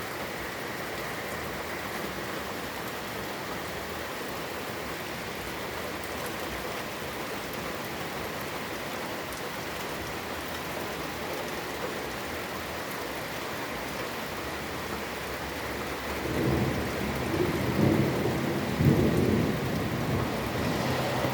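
Steady rain falling. Near the end a low rumble of thunder rolls in and swells, peaking twice.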